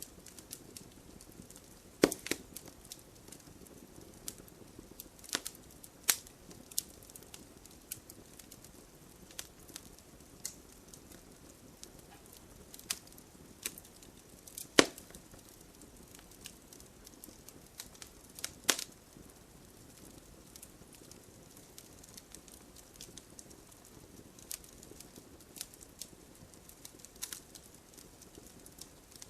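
Wood fire burning in a fireplace: burning logs crackle, with irregular sharp pops over a low hiss, a few of them louder.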